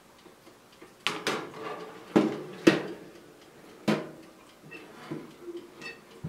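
Metal baking tray being slid onto a wire oven rack, clanking and scraping against the rack in several sharp knocks with a brief ring, the loudest about two and a half seconds in, then lighter knocks near the end.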